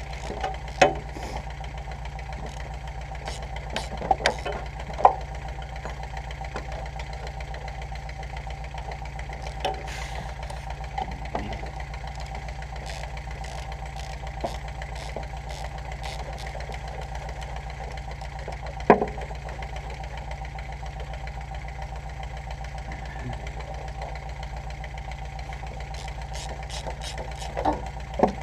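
Steel hand tools clanking against the bolts and frame of a truck chassis as engine-mount bolts are worked loose: a few sharp metal clanks, a cluster around four to five seconds in, a single loud one near the middle, and a pair near the end. Under them runs a steady mechanical hum.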